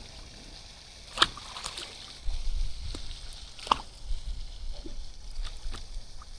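Water sloshing and splashing as a hooked channel catfish thrashes at the bank, with two sharp clicks, one about a second in and one near the middle.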